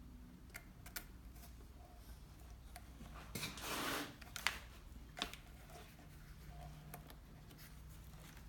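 Faint handling noises of work on an ATV: scattered light clicks and taps, with a brief rustle about three and a half seconds in, over a low steady hum.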